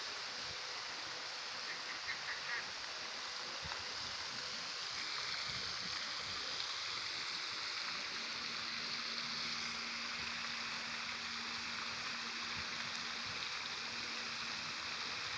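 Tiered park fountain's many water jets spraying and splashing into the basin: a steady rush of falling water.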